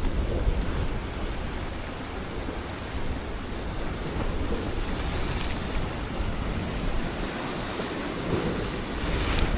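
Sea surf washing against shore rocks, with wind buffeting the microphone as a low rumble. There is a brief click near the end.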